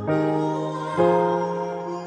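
Slow background music, with sustained notes and a new chord about once a second.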